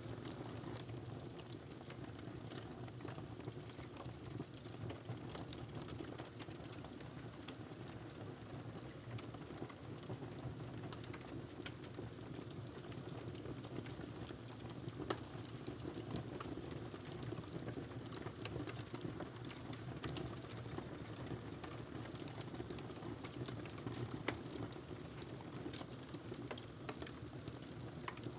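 Wood fire crackling in a fireplace: a steady low rumble of burning with many small scattered snaps and pops, two sharper pops about halfway through and near the end.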